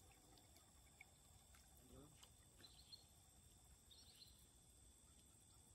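Near silence: faint outdoor background with three faint, short high chirps.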